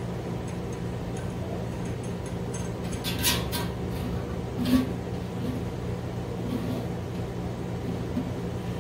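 A steady low hum, with brief handling noises of the kettle's heating element being fitted: a scrape about three seconds in and a sharper knock near five seconds.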